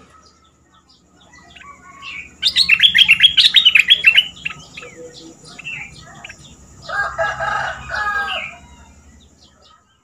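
A stripe-throated bulbul singing: a loud, fast run of sharp chattering notes that lasts about two seconds, then softer scattered calls. About seven seconds in, a lower, drawn-out call comes in two parts over about a second and a half.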